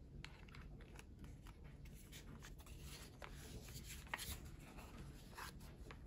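Faint handling of a plastic mechanical keyboard case: light clicks and rubbing as it is turned over in the hands, with a sharper click about four seconds in.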